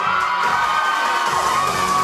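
Audience cheering and screaming over loud dance music, with high shrieks sliding up and down; the music's bass thins out briefly in the middle.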